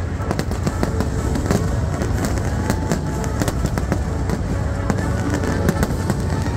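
A continuous barrage of aerial fireworks: many sharp bangs and crackles in quick succession, with music playing underneath.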